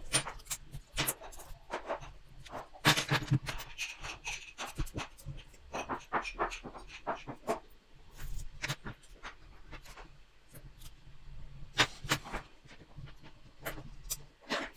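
Small metal construction-kit parts clinking and rattling as they are handled and fastened together by hand: a scatter of irregular sharp clicks and knocks, loudest about three seconds in and again about twelve seconds in.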